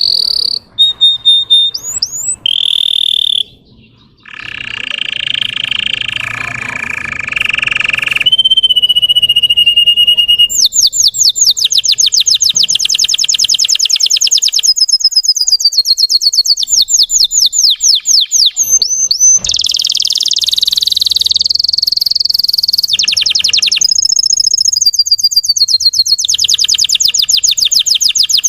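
Russian canary singing a long, varied song: short whistled notes and a buzzy rolling passage at first, then long, very fast trills of repeated high, falling chirps broken by held whistled notes.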